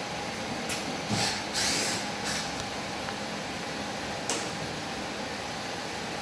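Two dogs playing, heard as a few short rustling, scuffling noises over a steady background hum. The noises cluster in the first couple of seconds, with one more a little after the middle.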